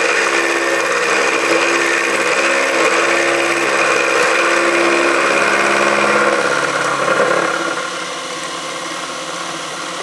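Benchtop mini mill running, its end mill cutting a metal T-nut clamped in the vise. It makes a steady motor whine over the noise of the cut, and the sound drops somewhat about seven and a half seconds in.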